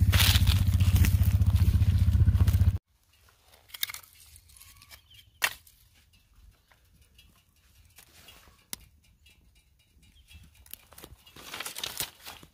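A small engine running steadily, cut off abruptly a little under three seconds in. After that come faint footsteps and crackles over dry stalks and leaf litter, with a few sharp snaps.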